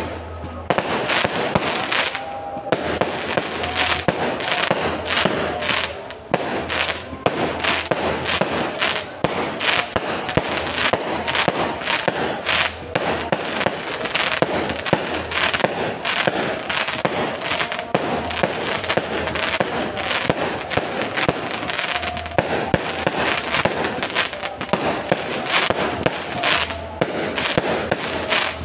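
Aerial fireworks bursting in rapid succession: a continuous, dense stream of bangs and crackling with no pause.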